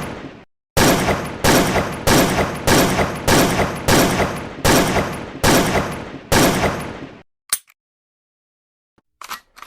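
Gunfire sound effect: a string of about nine single shots, roughly one every two-thirds of a second, each with a long echoing tail, stopping about seven seconds in. A short click and a few faint ticks follow near the end.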